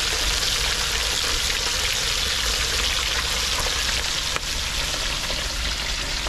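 Patwah fish frying in very hot oil in a cast-iron pot, a steady dense sizzle with small crackles and pops.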